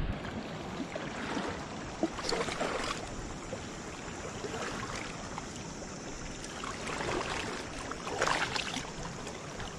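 Shallow seawater lapping and trickling among rocks in a tide pool, with a couple of louder sloshes.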